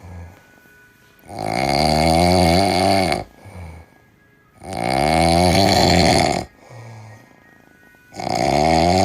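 A sleeping cat snoring loudly: three long snores, each about two seconds, coming about every three and a half seconds, with short softer breaths between them.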